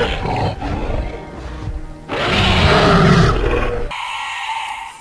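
Animated dinosaurs roaring over background music, with a loud stretch at the start and a second, louder one from about two seconds in. About four seconds in the sound cuts off abruptly, leaving only a thinner, quieter high sound.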